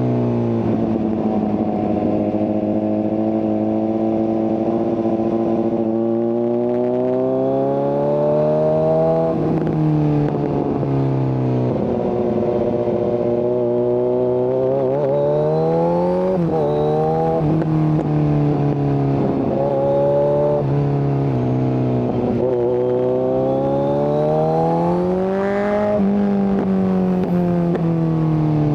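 Kawasaki Z900 inline-four running through an SC Project exhaust with no catalytic converter, under way on the road. The engine note climbs slowly in pitch as it pulls, then drops back, several times over, with a quicker dip and rise near the middle.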